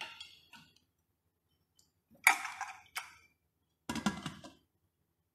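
Stainless-steel pressure cooker and lid being handled: a few light clicks, then sharp metal clanks with a short ring, the loudest about two seconds in and a cluster near the end.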